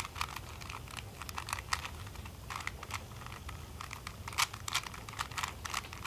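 A 3x3 Rubik's Cube being turned by hand, its plastic layers clicking and clacking in quick, irregular turns as a solving algorithm is performed.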